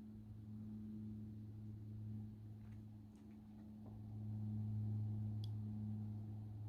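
A low, steady droning hum with a fainter tone an octave above it, swelling louder about four seconds in; its source is unidentified. A few faint ticks sound over it.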